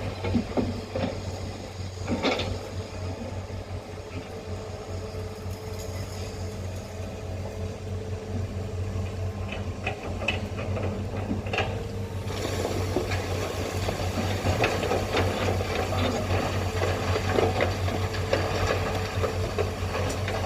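Heavy diesel machinery engine running steadily, with scattered knocks and rattles. The sound grows fuller and noisier about twelve seconds in.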